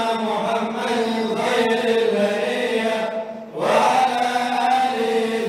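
Men chanting a melodic Arabic recitation of the Prophet's biography with long held notes. About three seconds in, the chant breaks off briefly for a breath, then the next phrase starts on a rising glide.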